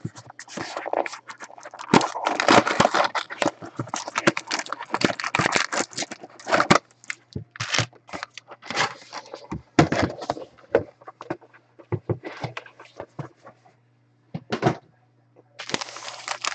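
Hands handling trading-card packaging: irregular crinkling and scraping of cardboard and foil pack wrapping, pausing briefly near the end. A low steady hum runs underneath.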